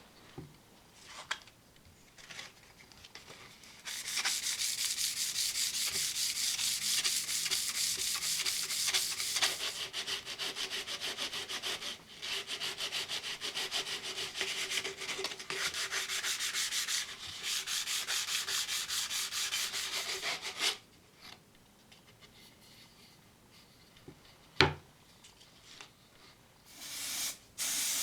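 Sanding by hand: sandpaper rubbing on a surface in rapid scratchy strokes for about seventeen seconds, pausing briefly a few times. After that comes a single sharp knock, and a short burst of noise near the end.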